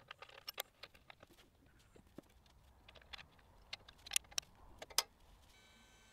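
Small metal clicks and clinks of an Allen key and screws as the vibrator assembly is bolted to the motor, irregular sharp taps with the loudest few in the second half. A faint steady whine sets in near the end.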